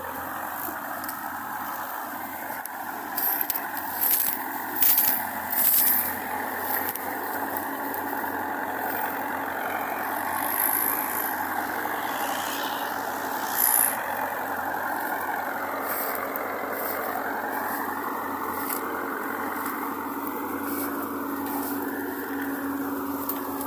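Heavy diesel farm machinery running steadily. Several short, loud sharp noises come about three to six seconds in and once more about fourteen seconds in, and the engine note rises for a moment past the middle.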